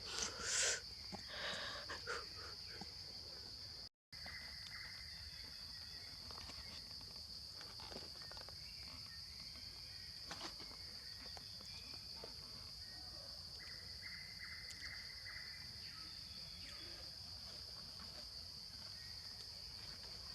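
Steady, high-pitched chirring of insects, with a few louder brief sounds in the first two seconds. The sound cuts out for a moment about four seconds in.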